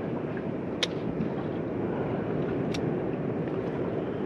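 Steady wind rumble on the microphone with water noise around a small fishing boat, and two short sharp clicks about two seconds apart.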